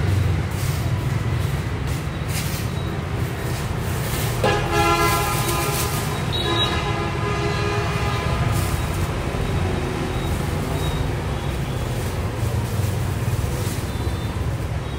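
A vehicle horn sounds once for about two seconds, about a third of the way in, over a steady low rumble.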